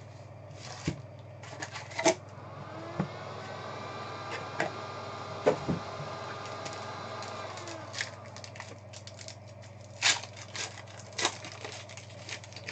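Foil trading-card packs crinkling and clicking as they are handled and set down on a stack, with several sharp crackles, the loudest about two seconds in, midway and about ten seconds in. A faint pitched hum rises about three seconds in, holds, and falls away about four seconds later.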